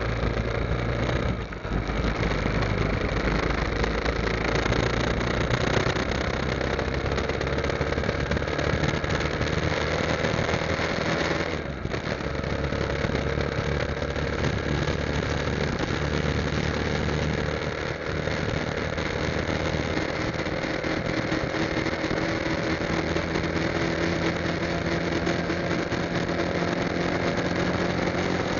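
Motorcycle engine running under way as the bike rides along the road, with wind and road noise. The engine note drops briefly twice, about a second and a half in and near the middle.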